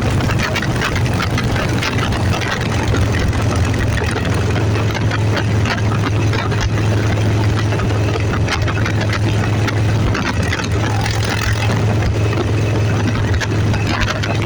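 A vehicle engine running steadily, its low hum unchanging, under a rush of noise that comes in short gusts.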